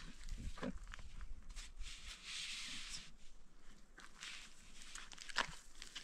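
Soft rustling of a mesh cloth being spread over a baby's swing cradle, with a few small clicks and knocks from handling the cradle; the sharpest knock comes a little over five seconds in.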